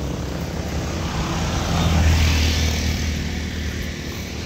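Road traffic: a passing motor vehicle, most likely a motorcycle, its engine swelling about two seconds in and then fading.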